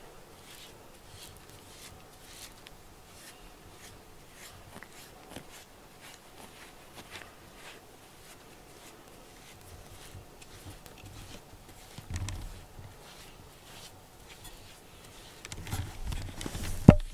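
Faint scattered rustles and scratches of hands handling a cat up close, with a low bump about twelve seconds in and more bumping near the end, and a sharp click just before the end.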